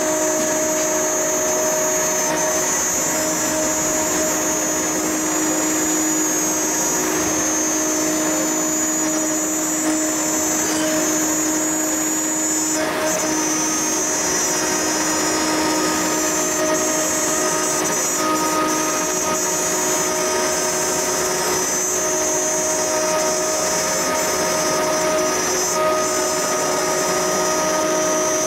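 Blue Elephant 1530 ATC CNC router spindle milling aluminium plate with a small cutter under coolant. It makes a steady whine of several held tones over constant cutting noise.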